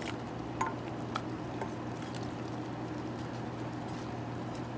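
A few light clicks of a utensil against a pot, mostly in the first two seconds, as macaroni is stirred into cheese sauce, over a steady low hum.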